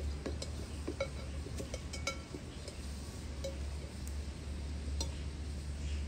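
Cooking utensils clinking and tapping against metal pots and dishes, a dozen or so light, irregular strikes, some with a short ring, over a steady low hum.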